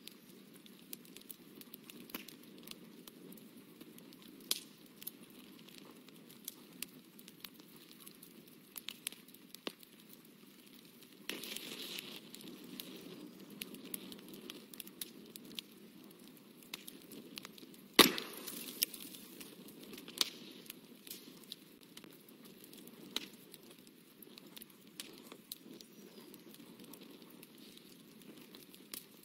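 Small scattered taps, clicks and rustles of hands and a paintbrush working at a painting desk, with a rustly stretch a little before halfway and one much louder sharp click about 18 seconds in.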